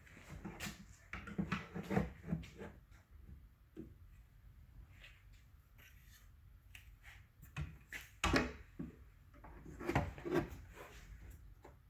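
Wooden base-cabinet parts being handled and fitted together: scattered knocks, taps and wood-on-wood rubbing, loudest about 8 seconds in and again around 10 seconds.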